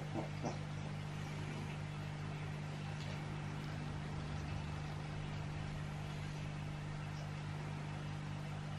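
Steady low machine hum with a fast, even pulse underneath.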